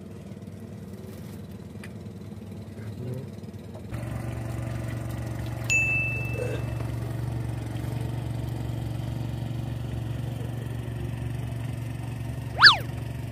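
A steady low engine hum comes in about four seconds in and runs on evenly. A brief high ding comes about six seconds in, and a short, sharp chirp that drops and rises again is the loudest sound, near the end.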